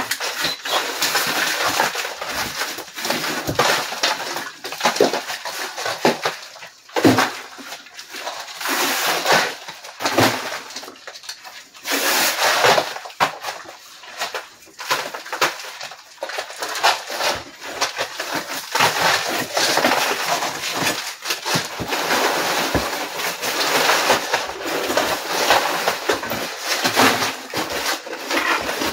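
Horsehair plaster being pried off wooden lath with crowbars: a near-continuous run of cracking, crunching and scraping as chunks break away and fall, with a few brief lulls.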